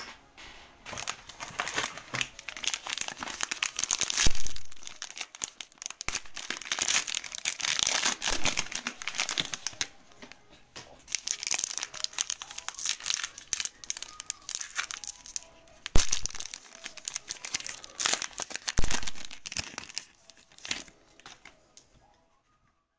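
Foil wrapper of a Panini Optic basketball card pack crinkling and tearing as it is opened by hand, with a few sharp taps among the crackle.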